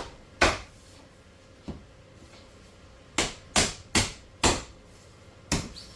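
Hard knocks of 3D-printed plastic furniture parts being tapped and pushed together during assembly. A pair of knocks comes at the start, then a faint one, then a quick run of four and one more near the end.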